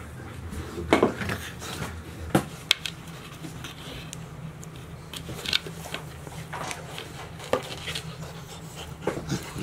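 Golden retriever puppies playing with a cardboard tube on a vinyl floor: scattered knocks, taps and scuffs from paws and the tube, with the odd small puppy noise, over a steady low hum.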